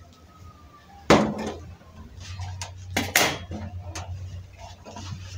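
Metal gas-stove parts being handled on a steel worktable, clanking: one sharp clank about a second in, two close together around three seconds in, and lighter knocks between and after.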